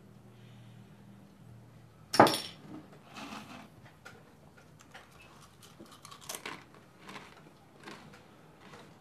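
A glass bottle set down on a tabletop with one loud knock about two seconds in, followed by scattered light clinks and taps of bottles and a glass being handled on the table.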